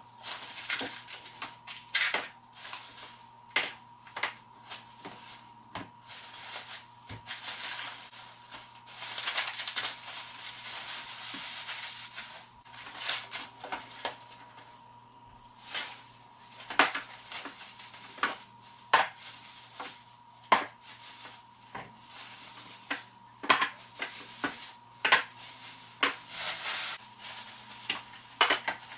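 Plastic grocery bags rustling and crinkling while packaged groceries and jars are set down on a wooden table, with frequent sharp knocks and clacks.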